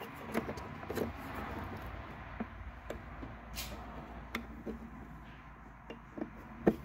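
Faint scattered clicks and rustles of a Triumph TR6 wiring harness being handled while a wire's connector is fitted to a relay terminal, with a sharper click near the end.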